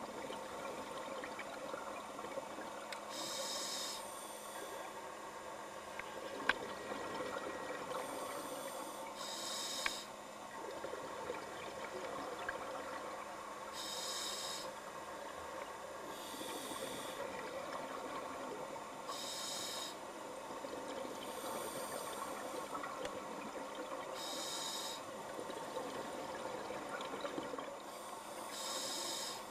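Scuba diver breathing through a regulator underwater: a short hiss of air comes every two to three seconds over a steady underwater wash.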